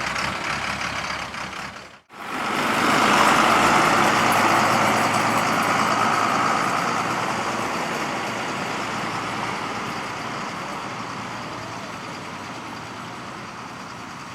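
Heavy machinery running with a steady, noisy rumble. It cuts out about two seconds in, comes back loud, then slowly fades away.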